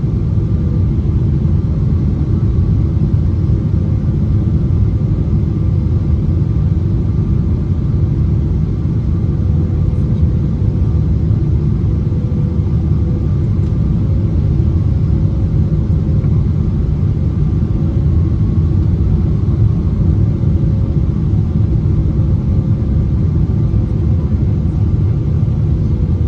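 Steady cabin noise inside a Boeing 777-300ER on approach with the landing gear down: a dense, even rumble of airflow and GE90 engines, with a faint steady whine over it.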